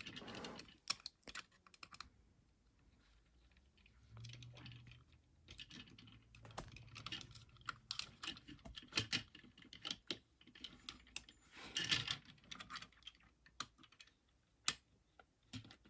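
Light, irregular plastic clicks and scraping as a small plastic piece with two side tabs is wiggled into a plastic action figure, with a cluster of clicks about twelve seconds in.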